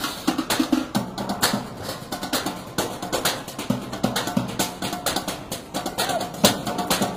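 A percussion group drumming with sticks on metal trash cans and lids: a fast, busy rhythm of sharp metallic strikes, some with a short ring.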